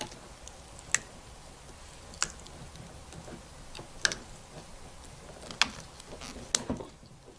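Self-vulcanizing tape being wrapped under tension around a cable connector by hand: five sharp clicks about a second or more apart over faint handling noise, with a few smaller ticks between.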